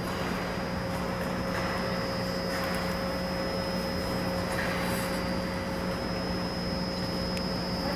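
Steady hum of ventilation machinery in an ice rink, with a few soft swishes of figure skate blades gliding on the ice.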